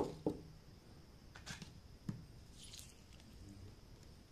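Fingers handling food on a serving tray: a sharp knock right at the start and a smaller one just after, then a few faint, soft squishing and rustling sounds.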